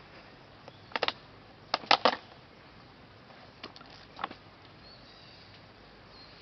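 A few sharp knocks or taps: a pair about a second in, a quick loud cluster of three about two seconds in, and two fainter ones near four seconds.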